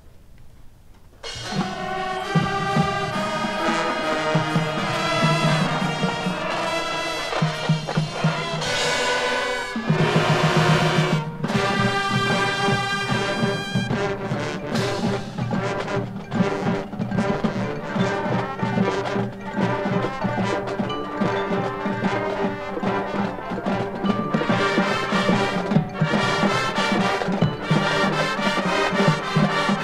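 High school marching band playing brass with front-ensemble percussion, a new piece starting abruptly about a second in after a short lull. The music swells loudest about ten seconds in.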